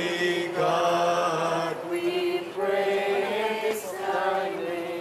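A man's voice chanting a liturgical prayer through a microphone, holding steady notes in phrases about a second long with short breaks between them.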